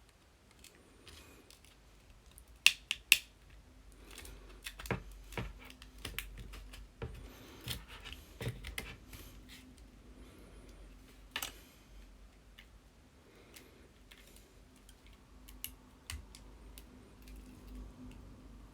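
Small clicks and taps of hand tools and parts on an iPhone being taken apart, scattered and irregular, with two sharp clicks about three seconds in.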